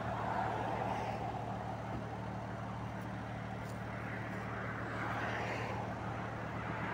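A car driving at steady speed: a constant low engine hum under even road and tyre noise.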